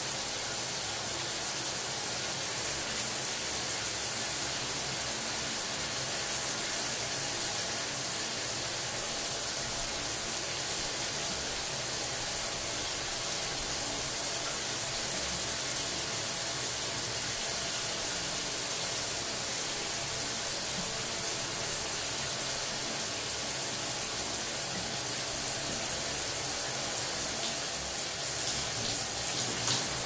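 Shower running: a steady, even hiss of water spraying down, with no breaks.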